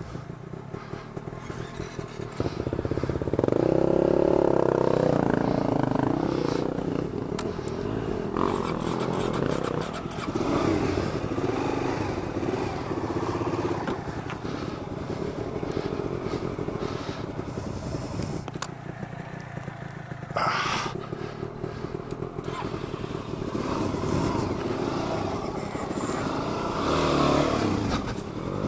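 Dual-sport motorcycle engine, a Suzuki DR-Z400 single-cylinder four-stroke, running with the revs rising and falling while riding through mud; it gets louder about three seconds in. There is a sharp clatter about twenty seconds in.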